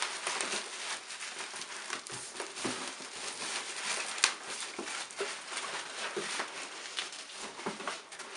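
Hands rummaging through polystyrene packing peanuts and bubble wrap in a cardboard box: continuous rustling and crinkling with many small clicks, and one sharp click about four seconds in.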